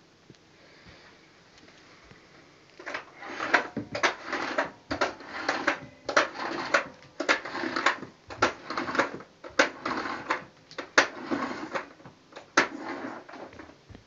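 Power cord being pulled out of the cord reel of a Bosch BGC05AAA1 bagless vacuum cleaner, a string of short irregular rattles and knocks of cable and plastic that starts about three seconds in and goes on to near the end. The vacuum motor is not running.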